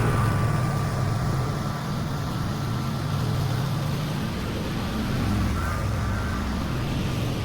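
Lawn mower engine running steadily with a low hum.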